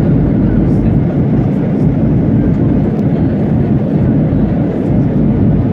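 Steady low rumble of a moving vehicle, heard from inside its cabin.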